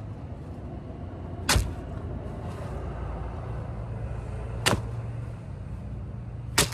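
Plastic bags and hats being handled and rummaged through, with three sharp crinkles or knocks a few seconds apart, over a steady low hum.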